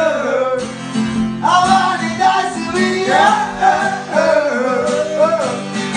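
Twelve-string acoustic guitar strummed steadily, with a man singing along over it.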